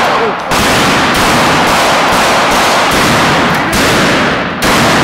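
Pump-action shotgun fired repeatedly: loud blasts, one about half a second in and another near the end, run together in the echo of an indoor shooting range so that there is no quiet between them.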